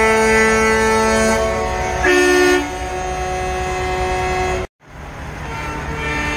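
Many vehicle horns, including truck air horns, sounding together in long overlapping blasts. A louder horn joins about two seconds in. The sound cuts out for a moment near the five-second mark, and more sustained horns follow.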